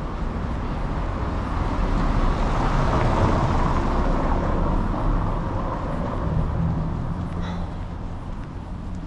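A motor vehicle passing close by, its engine and tyre noise swelling to a peak about three to four seconds in and then fading away, over a steady low traffic rumble.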